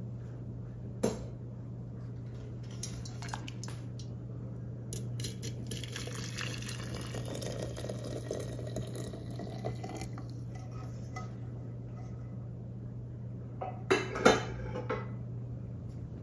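Just-boiled water poured from a saucepan into a glass teapot, a splashing pour lasting about five seconds. There is a single knock shortly before, and sharp clinks of metal and glass near the end.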